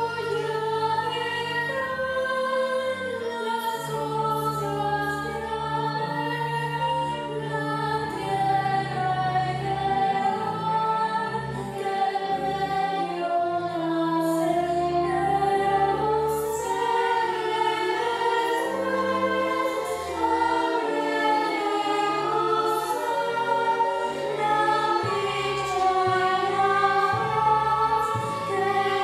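A virtual choir of children's and young voices singing a slow song in long held notes, over low sustained accompaniment notes.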